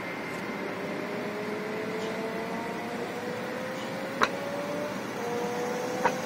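Road vehicles moving off slowly: an escort van and the truck hauling a tram. The engine note rises slowly as they pull away. Two sharp clicks come about four and six seconds in.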